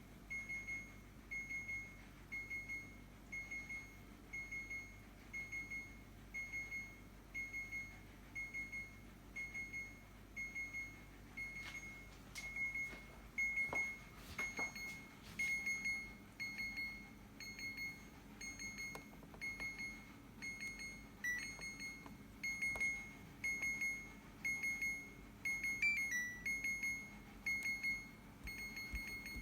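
A refrigerator's electronic alarm beeping: a high-pitched beep, each one doubled, repeating evenly about every two-thirds of a second without stopping. A few clicks and knocks come in the middle, and a second, slightly lower beep mixes in near the end.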